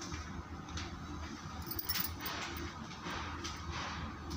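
Knife spreading sauce on a slice of bread: faint, irregular scraping with small clicks.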